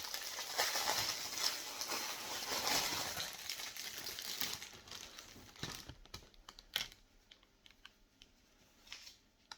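Wrapping around a t-shirt crinkled and rustled by hand as it is opened: dense for the first four seconds or so, then a few scattered rustles and clicks that die away about seven seconds in.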